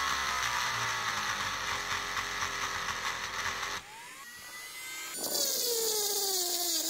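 Small rotary tool grinding the end terminal of an 18650 lithium cell with a stone bit, roughening it for soldering. It makes a high steady whine that sinks slowly in pitch as the bit bears on the metal. The whine drops away a little past halfway, with a brief rising whine, and comes back loud about five seconds in, sinking again.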